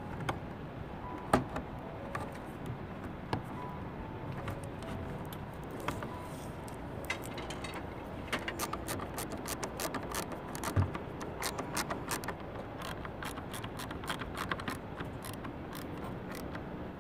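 Plastic clicks, taps and rattles as the white plastic cover of a MaxxFan roof vent is handled and pressed onto its base on a van roof. One sharp knock comes about a second in, and a quick run of clicks falls in the middle.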